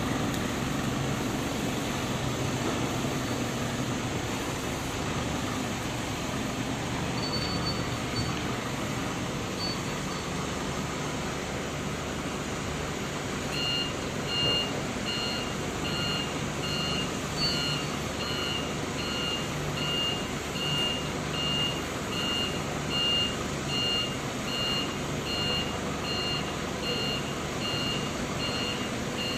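Mitsubishi Grendia forklift engine running steadily. About halfway through, its reversing alarm starts, beeping evenly a little over once a second as the forklift backs up.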